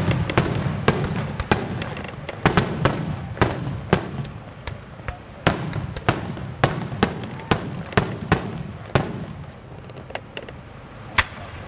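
Aerial firework shells bursting: a rapid, irregular string of sharp bangs and cracks that thins out after about nine seconds.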